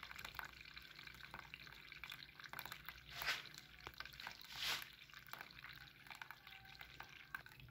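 Sugarcane juice running from a brass tap into a plastic tub of froth: a faint trickle with small drips and pops, and two brief louder swishes partway through.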